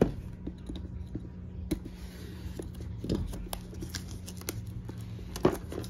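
Plastic shrink wrap on a cardboard game box being slit with a folding knife and then picked at and peeled by hand: small scrapes, ticks and crinkles, with a sharper click about a second and a half in and another near the end.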